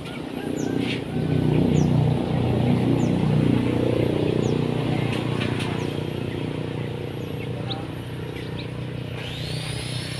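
A passing motor vehicle's engine hum, swelling about a second in and then slowly fading away, with small birds chirping in short high notes over it.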